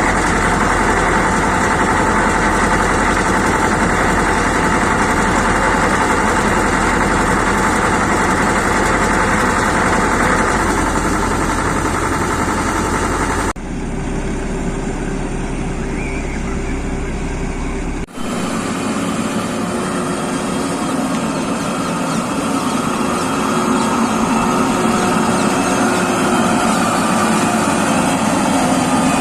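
Heavy road-construction machinery running steadily, in three separate stretches with abrupt cuts between them.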